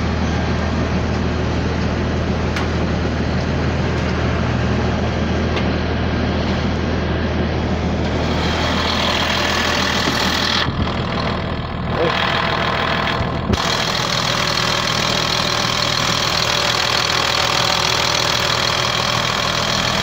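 Diesel engine of a Blue Bird All American bus idling steadily, driving its air-conditioning compressor. About eight seconds in the sound turns brighter, with more whir and hiss, as the open engine compartment is heard up close.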